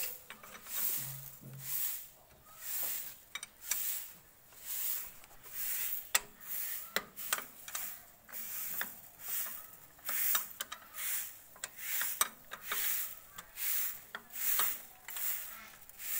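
Repeated metal scraping strokes, about three every two seconds, with a few sharp clicks among them, as a hand tool works at the starter motor's solenoid terminal.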